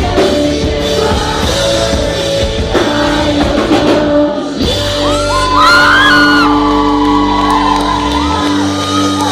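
Live rock band playing loudly in a hall with singing, then ending the song on a held chord that rings out from about halfway while the crowd shouts and whoops. The bass of the held chord cuts off near the end.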